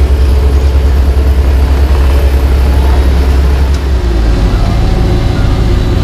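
Heavy diesel engines of asphalt paving equipment running steadily, a loud, deep, even rumble.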